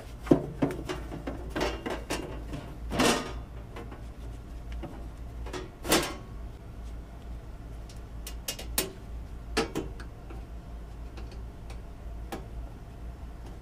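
Metal breaker-panel cover being fitted back onto an electrical panel: scattered clunks, scrapes and clicks of sheet metal, the loudest a scrape about three seconds in and a knock about six seconds in, with lighter clicks later on.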